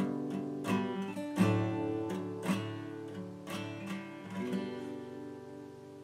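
Background music of plucked acoustic guitar, one note after another, each ringing out; it slowly fades out over the last few seconds.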